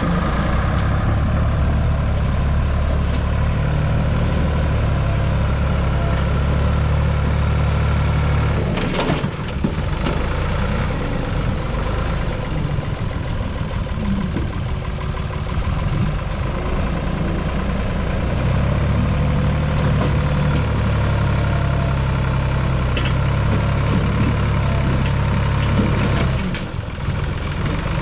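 Backhoe's diesel engine running, steady at first, then uneven for several seconds in the middle, then steady again.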